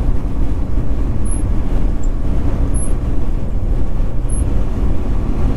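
Semi-truck driving at road speed: a steady low engine and road rumble, with a faint high tick about every one and a half seconds.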